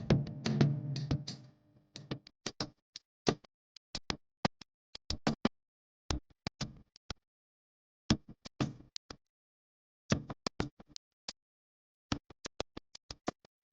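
Music fades out within the first two seconds, followed by a series of short, sharp clicks or taps in irregular clusters with silent gaps between them.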